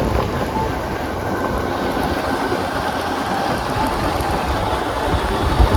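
A motorbike on the move: steady engine and road rumble mixed with wind noise on the microphone, with a brief low bump near the end.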